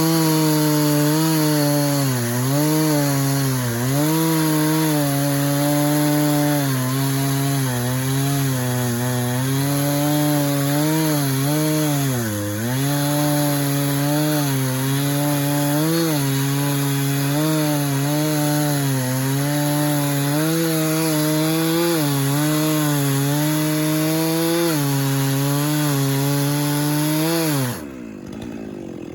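Chainsaw in a Granberg chainsaw mill, ripping through a cant at high throttle, its engine pitch dipping and recovering again and again as it bogs in the cut. Near the end the throttle is let off and the engine note falls away sharply.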